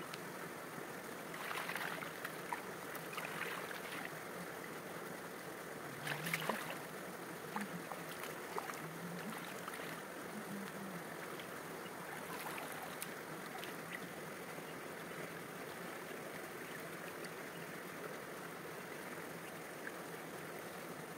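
Water splashing and sloshing as a shallow tray of sliced wild yam is dipped, shaken and rinsed in a stream, over a steady rush of flowing water. The splashes come in short bursts, mostly in the first seven seconds and again briefly around the middle, then only the flowing water.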